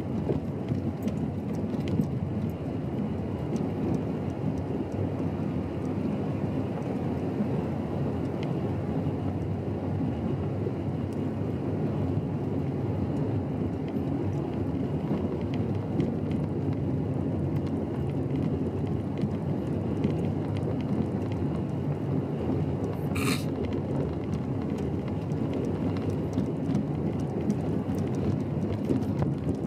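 Car driving on a gravel road, heard from inside the cabin: a steady low rumble of tyres on gravel and engine, with faint scattered ticks. A brief high chirp sounds once late on.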